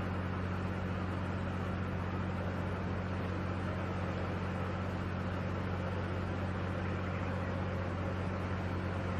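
Steady low mechanical hum with an even rushing noise above it, unchanging throughout, like idling machinery or an engine running.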